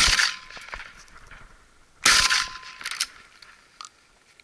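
An SKB 505 over-and-under shotgun fired twice at thrushes, the two shots about two seconds apart, each followed by a short echo dying away.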